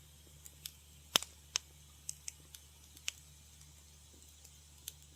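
Wood fire crackling in a fireplace: irregular sharp pops and snaps, about ten of them, the loudest just over a second in, over a faint steady low hum.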